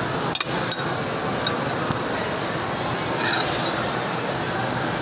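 Metal spoon and fork clinking against a pot and dishes, a few sharp clicks about half a second in, over the steady background din of a busy mall.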